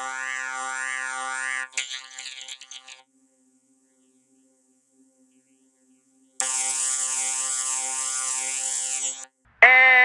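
Cartoon bee buzzing sound effect, a loud electronic buzz whose pitch warbles up and down about three times a second. It breaks up and stops about three seconds in, returns harsher after a few seconds of near silence, and gives way to loud guitar music just before the end.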